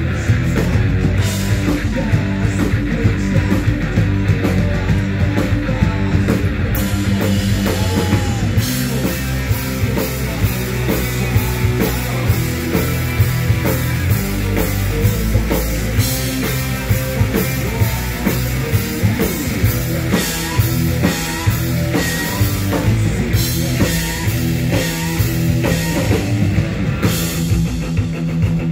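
Live rock band playing loud: electric guitar over a drum kit keeping a steady beat.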